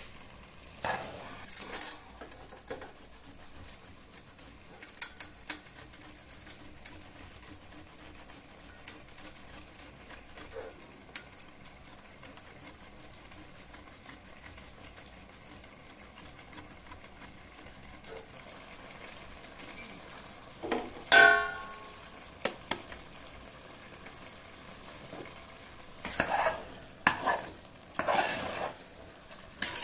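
Steel box grater scraping through crumbly fresh milk solids on a steel plate, with scattered light clicks over a steady faint sizzling hiss. A little past two-thirds of the way in comes one loud metallic clang that rings briefly. In the last few seconds a spoon scrapes and stirs carrot halwa in a steel pot, in repeated strokes.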